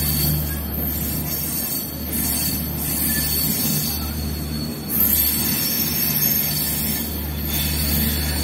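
Running noise of a moving passenger train heard at an open coach window: a steady rumble of wheels on the rails with rushing air, getting louder for a few seconds about five seconds in.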